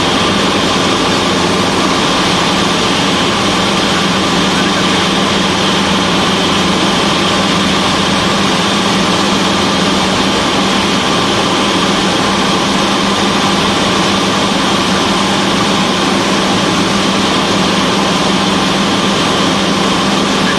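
Cessna 172's piston engine and propeller droning steadily in flight, a constant hum with no change in pitch.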